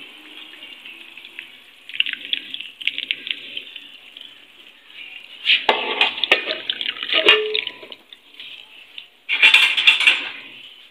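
Hot ghee being poured from a pan through a steel mesh strainer into a glass bowl: a steady trickling pour that grows louder about halfway, with several sharp clinks of the strainer and pan, and a loud rush of liquid near the end.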